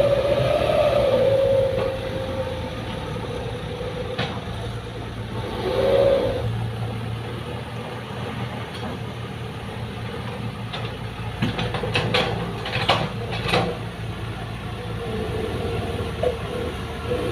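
Heavy diesel machinery working: an engine runs under load with a wavering whine that rises and falls at the start and comes back near the end. A few sharp metallic clanks come about two-thirds of the way through.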